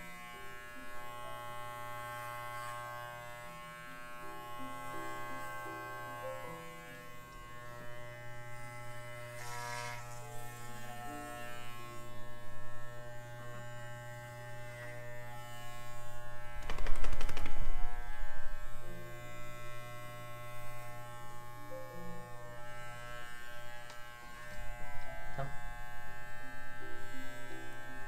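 Electric pet hair clippers buzzing steadily as they trim a miniature schnauzer's head hair, with a louder, rougher stretch a little past halfway.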